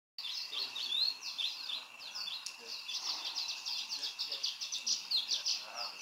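Barn swallow singing: a rapid, continuous twittering of quick high chirps and short sweeps.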